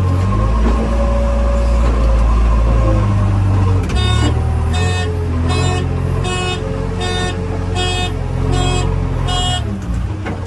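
Heavy diesel engine running with a steady low rumble, while a reversing alarm beeps about eight times at an even pace of a little over one beep a second, starting about halfway in.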